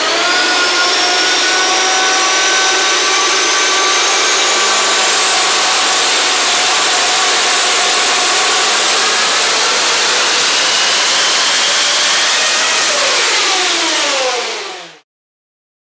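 Sequentially supercharged and twin-turbocharged Duramax V8 diesel running hard on an engine dyno during a power pull, with several whining tones that climb slowly in pitch. About twelve seconds in the tones slide down as the engine comes off the pull, and then the sound cuts off suddenly.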